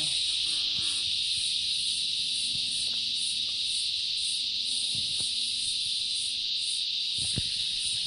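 Dusk chorus of insects: a dense, steady, high-pitched buzz with a higher chirping pulse about two or three times a second above it. A single knock sounds near the end.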